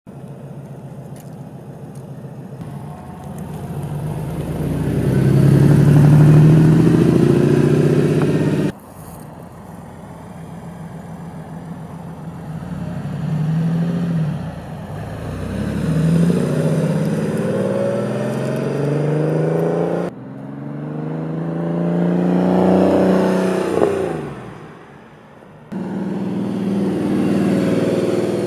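Air-cooled flat-six engine of a 1985 Porsche 911 Carrera pulling hard. Its pitch climbs with the revs and drops back at each gear change, in several spliced takes that cut off suddenly. Near the end of one take the engine note falls and fades before the next take begins.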